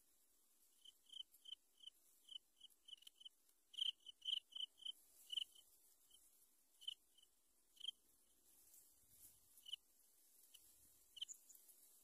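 Yellow bittern chicks peeping in the nest: short, high chirps repeated at an uneven pace, coming quickly about four to five seconds in, then more sparsely.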